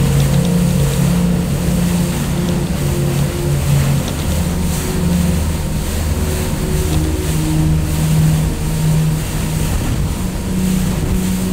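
Boat engine running steadily with a wash of water noise, under slow ambient music of low held notes that change pitch every second or so.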